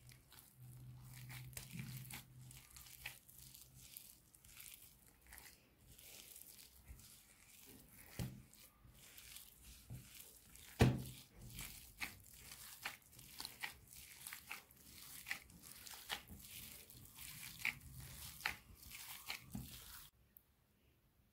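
A hand in a plastic glove kneads soft, oily cookie dough in a glass bowl: wet squelching and crinkling of the glove, with irregular light clicks and scrapes against the glass and one sharper tap near the middle.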